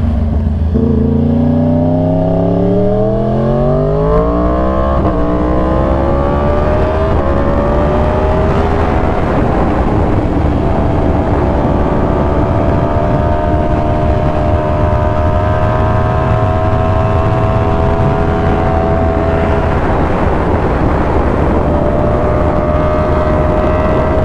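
A 2020 Yamaha R1's crossplane inline-four, breathing through an SC Project exhaust, pulls hard with its pitch rising. It upshifts about three times in the first nine seconds, each shift a sudden drop in pitch. It then settles into a steady run, easing briefly at about twenty seconds before holding again.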